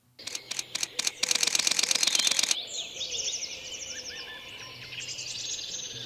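Camera shutter firing a few single clicks, then a fast continuous burst, followed by small birds chirping and singing that slowly fade.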